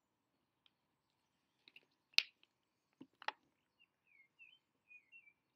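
Two sharp knocks, about two and three seconds in, then a series of short, high bird chirps near the end.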